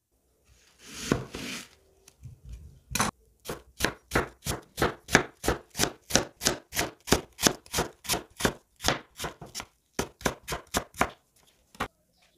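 Kitchen knife slicing a peeled onion thinly on a bamboo cutting board: an even run of sharp chops, about three a second, that stops near the end.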